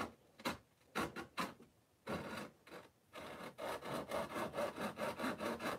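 Flexible pull saw cutting through the layout's fascia board: a few separate strokes at first, then from about three seconds in a quick even run of short strokes, about five a second.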